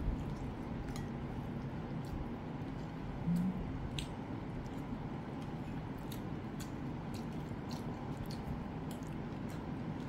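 Steel chopsticks ticking and scraping on a whole boiled chicken as its tender meat is pulled off the bone, with soft squishing of the flesh. One short low murmur about three seconds in.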